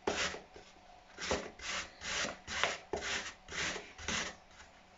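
A peeled apple being grated on the biggest holes of a metal box grater: a series of rasping strokes, about two a second, with a short pause after the first stroke, stopping shortly before the end.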